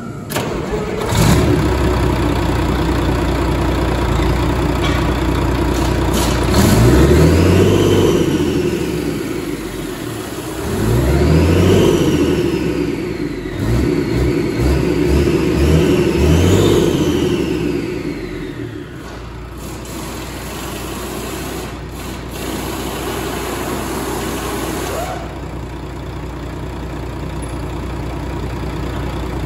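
Volvo VED12 12-litre inline-six diesel engine catching about a second in and running. It is revved up and back down several times, then settles to a steady idle for the last ten seconds.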